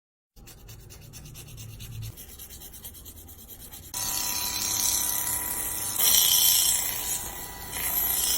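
Scratchy rubbing and scraping with fine rapid ticks. It gets abruptly louder about four seconds in and again about six seconds in, then stops suddenly.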